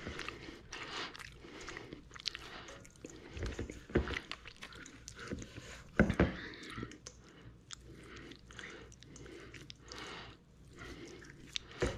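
Hands squeezing and kneading crumbly dough in a stainless steel mixing bowl: irregular soft crunching and squishing, with a few sharper knocks against the bowl.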